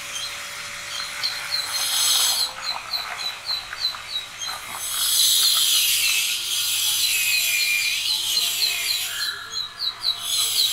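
Cooked vermicelli and its hot water poured from a pot onto a perforated steel strainer plate, splashing and draining through the holes, in a short spurt about two seconds in and a longer pour from about five seconds in. A bird calls over it with short repeated chirps, about three a second.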